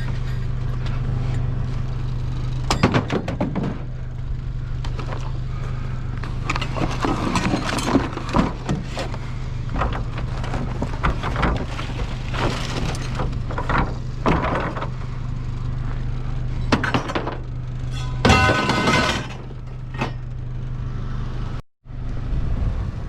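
Junk and scrap pieces clattering, knocking and clanking at irregular intervals as they are pulled apart and tossed, with a brief metallic ring a few seconds before the end. A steady low hum runs under it.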